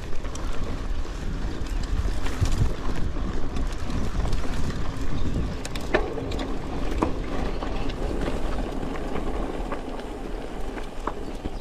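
A carbon hardtail mountain bike ridden over a dirt and gravel trail: knobby tyres rumbling and crunching over the ground, with scattered sharp clicks and rattles from the bike, and a steady low rush of wind on the microphone.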